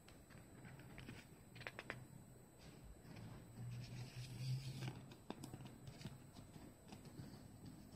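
Quiet handling of a CD's paper booklet and plastic jewel case: pages rustling and flexing as the booklet is folded, with a few light plastic clicks as it goes into the case. A faint low hum runs underneath.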